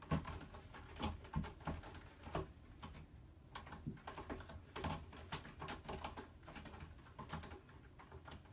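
Faint, irregular light clicks and taps, several a second, over a low room hum.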